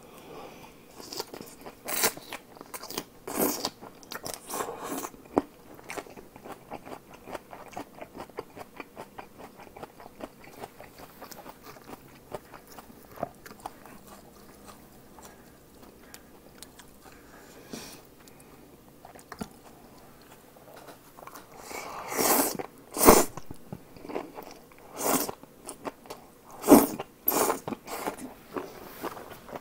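Close-miked chewing and biting of naengchae jokbal, sliced cold pig's trotters with crunchy vegetables: wet crackly mouth sounds throughout, with a run of louder bites and crunches in the last third.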